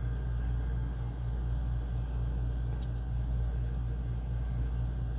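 Steady low hum with a faint regular throb, with one faint click about three seconds in.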